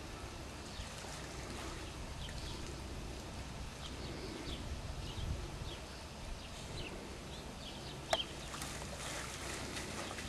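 Water splashing and sloshing in a plastic wading pool as a dog paws and stomps in it, with a single sharp knock about eight seconds in.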